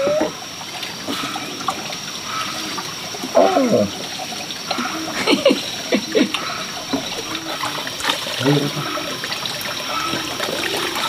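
Water running steadily, with a few short pitched calls, a little after the start, in the middle and near the end.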